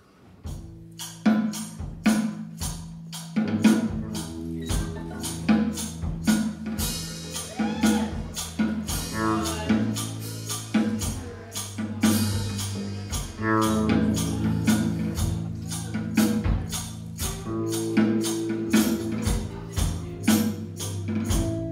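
Music with a fast, steady percussion beat over sustained bass notes, starting at once.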